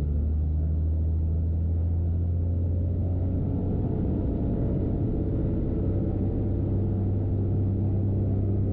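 Corvair flat-six aircraft engine and propeller being throttled up from idle for the pre-takeoff run-up toward 2000 RPM; a steady engine drone that grows fuller and higher in pitch from about three seconds in, then holds.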